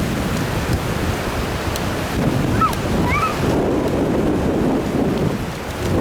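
Ocean surf washing on the beach with wind buffeting the microphone, a steady rushing noise. A couple of short high cries sound about halfway through.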